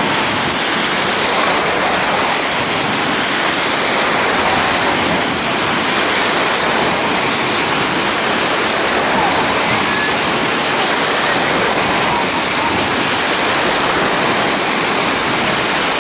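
Steady, loud rush of falling and splashing water, unbroken throughout.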